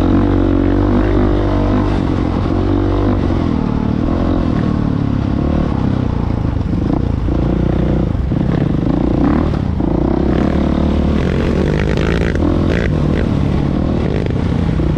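Off-road motorcycle (dirt bike) engine running under way on a dirt trail, the pitch rising and falling as the throttle is worked. A few short knocks and rattles come near the end.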